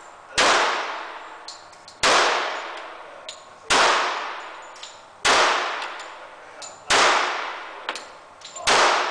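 Semi-automatic pistol fired six times at a steady pace, one shot about every one and a half to two seconds. Each shot is sharp and echoes for a second or more off the walls of an indoor range.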